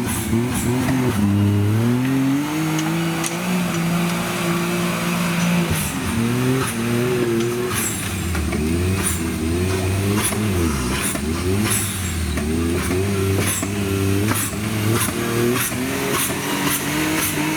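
Modified Suzuki Jimny off-road trial machine's engine revving up and down again and again as it works over the course, with scattered sharp knocks.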